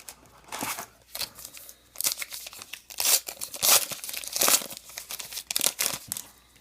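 Foil baseball card pack wrapper torn open and crinkled in the hands, in a quick run of irregular crackles.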